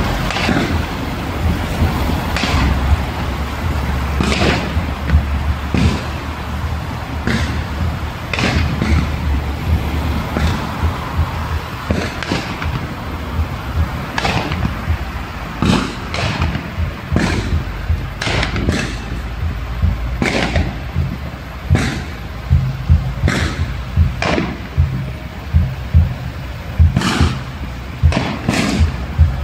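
Steady low rumble of a vehicle travelling on the road, broken by sharp bangs or knocks about every second, coming more often near the end.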